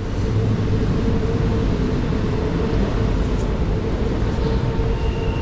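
Creek water rushing steadily over a shallow rocky riffle close by, a full, rumbling noise.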